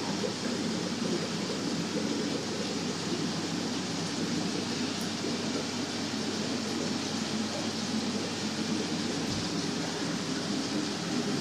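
Steady, even rushing noise of a fish-tank room's aeration and water-circulation equipment, unchanging throughout.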